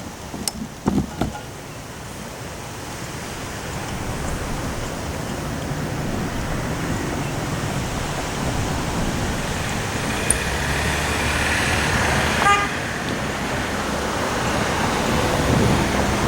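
Heavy storm wind with rain, a steady rushing noise with a low rumble that grows louder. About twelve seconds in there is a brief horn-like toot.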